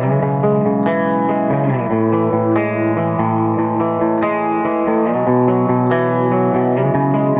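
Clean electric guitar through a Seymour Duncan bridge humbucker, double-tracked, strumming ringing chords in a low drop tuning. The chords change every second or two.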